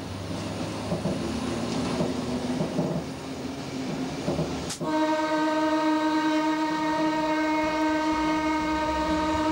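Electric railcar running along the track, heard from its driver's cab. About halfway through, a sharp click and the horn sounds, one steady tone held to the end.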